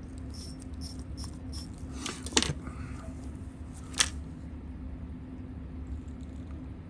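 Two sharp clicks about a second and a half apart, small tools or parts handled at a watchmaker's bench, with a few fainter ticks before them. A steady low hum runs underneath.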